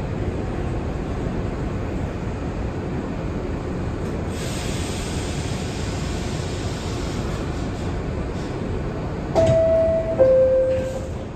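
Steady noise inside an R62 New York subway car, then the two-tone descending door chime about nine seconds in, a higher tone followed by a lower one, each under a second, signalling that the doors are closing.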